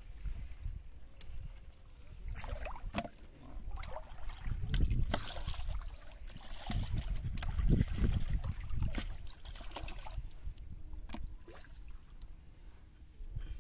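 Shallow water sloshing and splashing around a person wading, with scattered knocks and clicks. It is louder about four to five seconds in and again from about seven to nine seconds.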